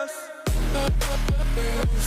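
Background music: a sung note fades, then about half a second in the full track drops in with heavy bass and steady drum hits, in an electronic rock style.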